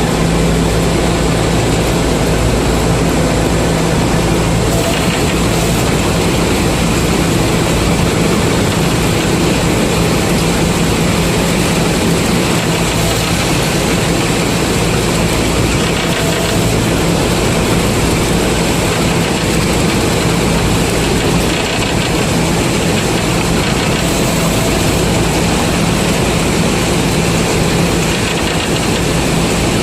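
A combine harvester's heavy diesel engine running steadily, with a constant low drone and a steady hum.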